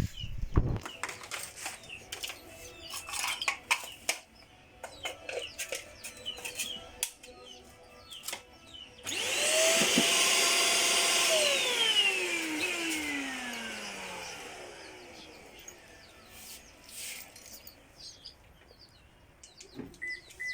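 Russell Taylors VC-20 handheld cyclone vacuum cleaner handled with clicks and knocks, then switched on about halfway through. Its motor runs with a steady whine for a few seconds, then is switched off and winds down, its pitch falling as it fades.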